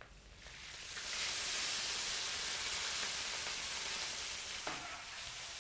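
Small fish sizzling in a hot wok over a wood fire. The hiss swells up about a second in, holds steady, then slowly dies down near the end.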